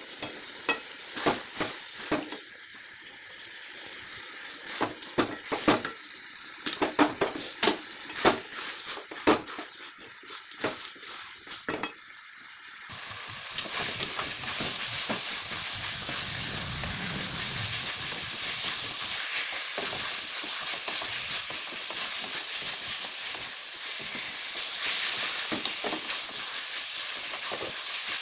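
Spoon clicking and knocking against a cooking pan in short bursts of stirring. About halfway through, a steady sizzle of frying sets in and carries on.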